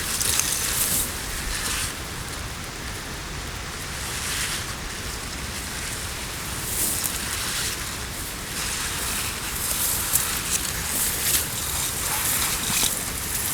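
Wind rustling through forest foliage: a steady hiss with louder swells every second or two.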